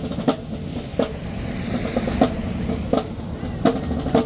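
Marching band drumline playing a cadence: snare rolls and bass drums over a continuous rattle, with a heavy accented hit about every two-thirds of a second.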